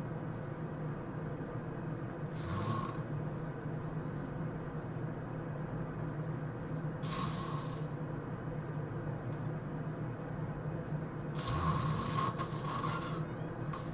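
A person snoring in sleep, three snores about four to five seconds apart, the last one longer, over a steady background hum.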